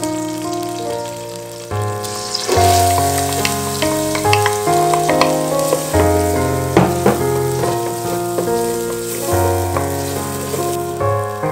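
Chopped onion frying in butter and olive oil in an enamel pot, the sizzle starting about two seconds in, with a wooden spoon clicking against the pan as it stirs. Background music with sustained keyboard notes plays throughout.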